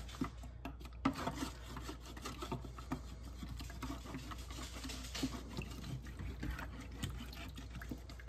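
Plastic dish brush scrubbing a wet plastic ketchup bottle in a bowl of water, a run of quick irregular scratching strokes mixed with water sloshing; the bristles are scrubbing off leftover label adhesive. The scrubbing stops near the end.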